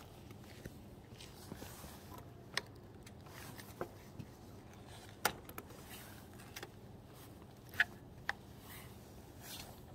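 Scattered sharp clicks and knocks from a Spark Z4 electric scooter's folding stem as it is lifted upright and handled at the folding joint, about half a dozen in all and loudest about five and eight seconds in, over faint steady background noise.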